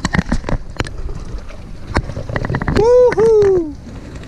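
A young boy's short, loud two-part cry, high-pitched, the second part sliding down in pitch, after a scatter of sharp clicks and taps.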